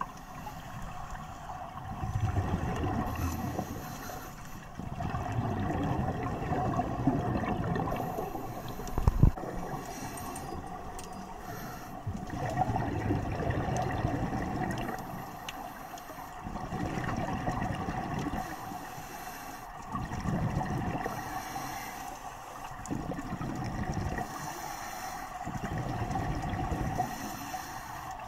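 Scuba diver breathing underwater through a regulator: bursts of exhaust bubbles rumble every four to five seconds over a steady hum. One sharp knock about nine seconds in.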